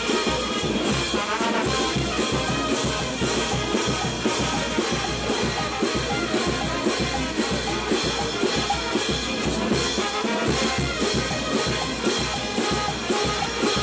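Brass band playing: trumpets and other brass over a steady drum beat.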